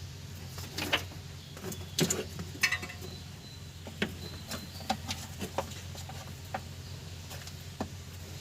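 Scattered light clicks and taps, roughly one a second, of parts and hand tools being handled on an engine under repair, over a steady low hum.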